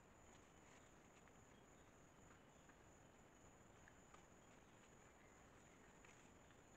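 Near silence with a faint, steady, high-pitched insect trill and a few soft, scattered clicks.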